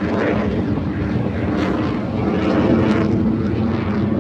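Blue Angels jet aircraft flying their display, a steady rushing jet engine noise with no break.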